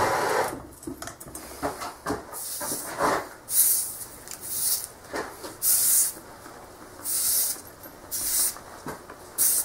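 A soldering torch's hiss cuts off about half a second in. Then a rag wipes the freshly soldered joint between a brass ball valve and copper pipe in short strokes, roughly one a second, each a brief hiss.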